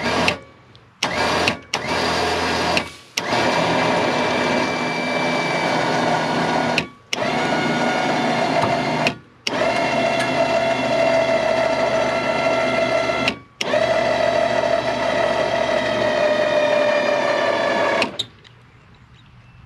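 Electric winch on a Can-Am side-by-side reeling in cable in stop-start runs, tightening woven wire fence through a fence stretcher. A steady motor whine that cuts off sharply half a dozen times, its pitch sinking slightly in the last long run as the fence takes up tension.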